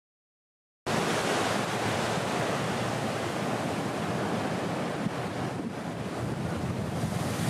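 Ocean surf breaking with wind buffeting the microphone, a steady rushing noise that cuts in suddenly about a second in, after dead silence.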